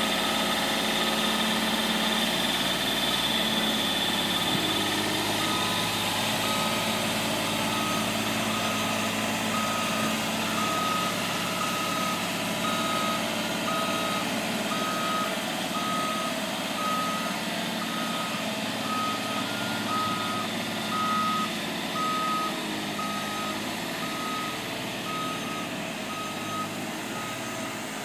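JLG 400S telescopic boom lift running, its engine humming steadily while its motion alarm beeps at a single pitch, about once a second, starting about five seconds in.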